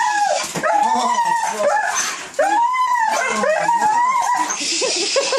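A dog whining and yelping in a string of high cries that rise and fall, one longer whine near the middle: the excited greeting of a dog reunited with its owner.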